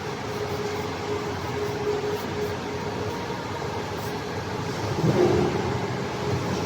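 125-ton CNC press brake running: a steady machine hum with a faint whine, getting louder about five seconds in.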